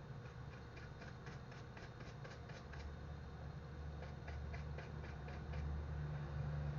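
Light, rapid clicking and small handling sounds of watch-repair work on a quartz watch, a few clicks a second, over a low hum that grows louder near the end.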